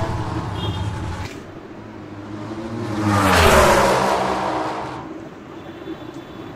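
A motor vehicle passing by: engine noise swells to a peak about three and a half seconds in and fades, its pitch dropping as it goes. Before it, a steady hum stops abruptly about a second in.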